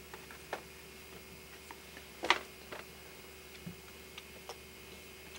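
A few faint, irregular clicks and taps, one louder about two seconds in, over a steady low hum.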